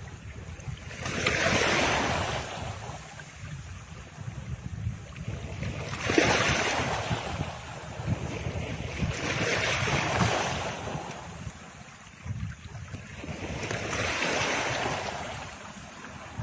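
Rushing, wave-like noise swelling and fading four times, a few seconds apart, over a steady low rumble.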